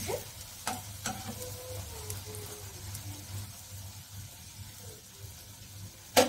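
Batter-coated night jasmine leaf pakoras frying in oil in a kadai with a faint sizzle, a slotted metal spatula tapping the pan a couple of times in the first second or so. Near the end, a loud double clatter of metal.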